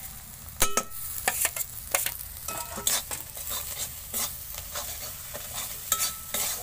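A flat metal spatula stirs and scrapes a frying onion-and-spice paste around an aluminium kadai. Irregular scrapes and taps against the pan sound over a steady sizzle of hot oil.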